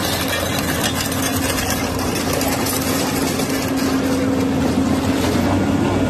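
Diesel engine of a tracked excavator running steadily, with a steady low hum.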